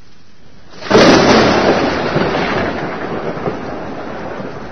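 Thunder in a rainstorm: a sudden loud clap about a second in that rumbles on and slowly dies away, over steady rain.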